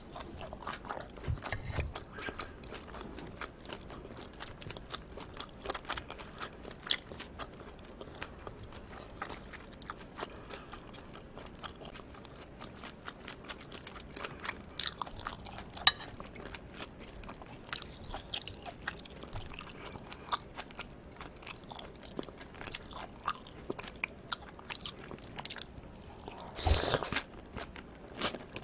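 Close-miked chewing of aged raw yellowtail amberjack sashimi: a steady run of small wet mouth clicks and snaps, with a louder, longer noise about two seconds before the end.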